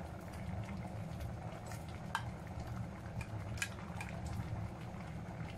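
A plastic spoon scraping and tapping on a ceramic plate as raw shrimp are pushed off it into a pot of simmering coconut milk, with several sharp clicks and a steady low hum underneath.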